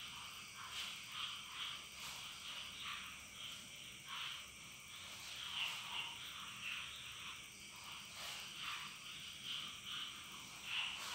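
A faint chorus of frogs calling, short calls repeating irregularly a few times a second.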